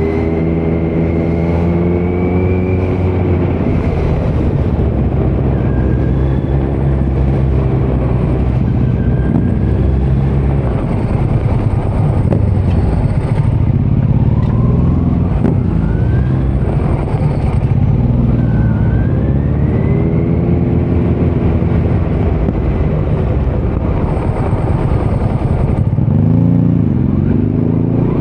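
2018 Kawasaki Z900's inline-four engine through a Leo Vince muffler on stock headers with no dB killer, under way on the road. The revs climb and fall again several times as the bike accelerates and shifts through the gears.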